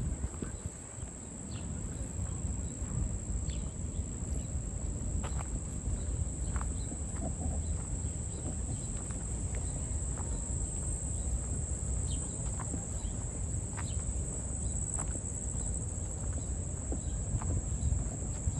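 A steady, high-pitched insect drone fills the summer woods, over a low rumble and scattered light taps from walking along a paved path.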